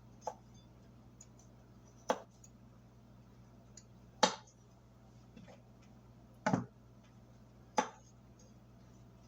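A kitchen knife coming down on a cutting board in slow single chops, about five sharp knocks spaced roughly two seconds apart, one of them doubled.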